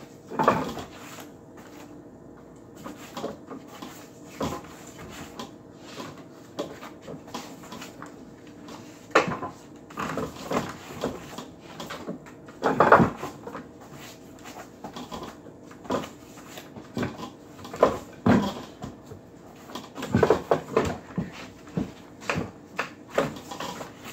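Wing Chun wooden dummy being worked by hand: irregular wooden knocks and slaps as forearms and hands strike its arms, some in quick runs, the loudest about halfway through.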